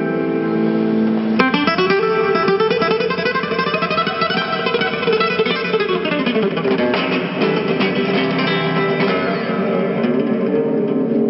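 Acoustic guitar playing in a flamenco style. A held chord gives way to a sharp strum about a second and a half in, followed by quick runs of plucked notes.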